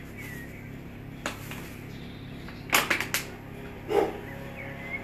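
Paper flour bag crinkling in a series of sharp crackles as flour is tipped out of it into a plastic mixing bowl on a kitchen scale. A dog barks once about four seconds in.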